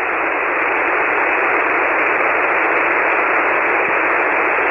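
Steady hiss of band noise from a ham radio receiver tuned to single sideband on the 40-metre band, heard only within the narrow voice passband, with no voice audible in it. The calling station's signal is coming and going and has sunk into the noise.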